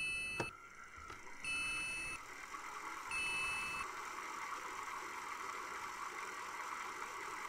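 Electronic warning beeps from a computer-style interface: three repeated pitched beeps, each under a second long and about a second and a half apart, over a steady hiss that carries on alone after the beeps stop.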